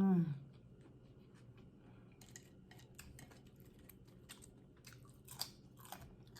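Close-miked chewing and crunching of a BLT sandwich: scattered crisp crunches and wet mouth clicks. It opens with a brief hummed "mmm" that rises and falls in pitch.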